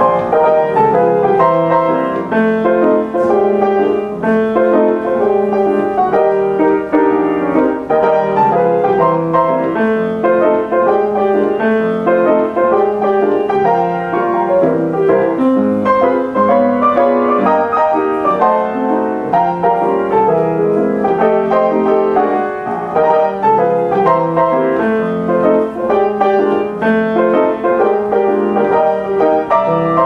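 Steinway Duo-Art reproducing grand piano playing a roll by itself: a medley of 1930s popular tunes, its keys worked by the pneumatic player mechanism with full expression. It comes in strongly right at the start after a brief dip.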